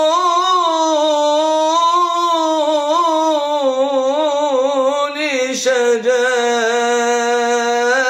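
A man singing an unaccompanied Islamic religious ibtihal, drawing one syllable out into a long, ornamented melisma with wavering pitch. There is a short break for breath about five and a half seconds in before the line continues.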